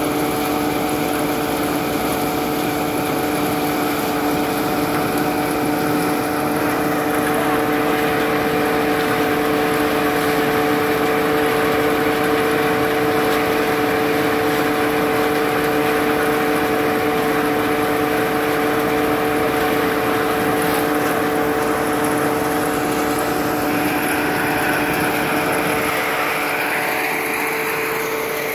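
Engine-driven threshing machine running at a steady pitch, with a constant hum and rushing noise as dried Job's tears stalks are fed in and threshed.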